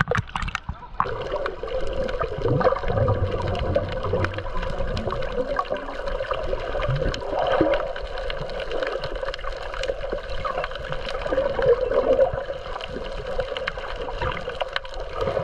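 Water heard underwater through a camera: muffled sloshing and gurgling bubbles with scattered small clicks. The camera goes below the surface about a second in.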